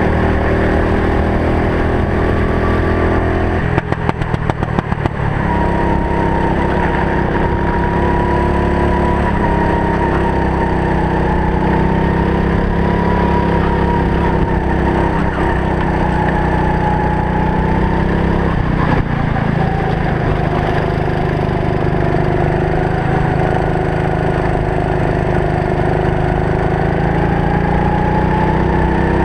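Racing kart's engine running hard, its pitch rising and falling as the kart accelerates down straights and lifts for corners. A quick run of rattling clicks comes about four seconds in, and a short knock near nineteen seconds.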